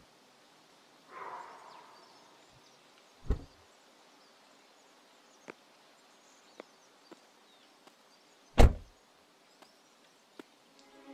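Jeep Wrangler door: a dull thump about three seconds in, a few faint clicks and taps, then the door slammed shut near the end, the loudest sound.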